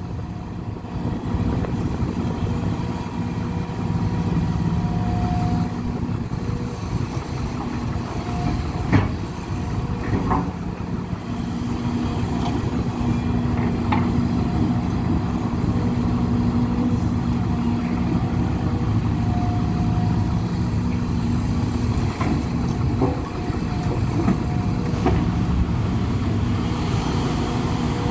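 Hidromek HMK 230 tracked excavator's diesel engine and hydraulics working steadily under load while loading earth into a dump truck, with a steady drone that grows stronger for about ten seconds in the middle. A few short knocks come through, around a third of the way in and again later.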